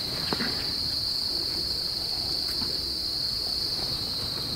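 Steady high-pitched drone of an insect chorus, unbroken throughout, with a soft click about a third of a second in.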